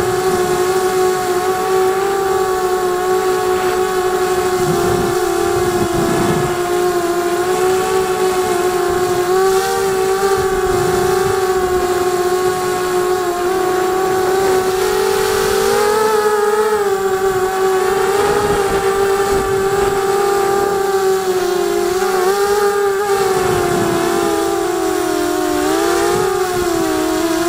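QAV250 racing quadcopter's brushless motors and propellers whining, a steady high drone whose pitch dips and rises as the throttle changes. Wind rumble on the onboard microphone runs underneath.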